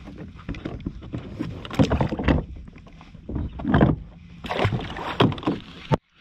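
Irregular water splashing and knocks around a plastic fishing kayak while a hooked redfish is fought, coming in loud clusters about a second apart. The sound cuts off suddenly near the end.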